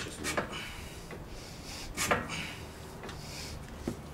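A BMW E39 suspension strut being worked by hand in the steering knuckle: metal knocks and scraping, with the loudest knock about two seconds in and a small click near the end.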